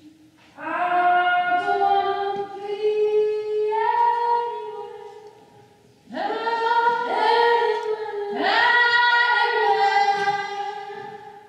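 A young woman singing unaccompanied: two long phrases of held notes that step upward, ringing in a large stone stairwell hall.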